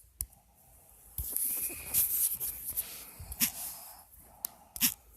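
A sleeping woman snoring loudly: a long, noisy, crackling snore starting about a second in, then short sharp snorts near the end.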